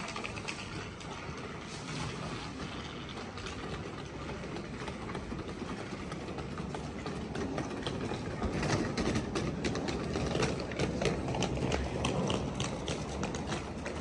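Outdoor street ambience in a busy pedestrian shopping street: a steady wash of town noise and distant voices, with a run of sharp clicks and clatter in the second half.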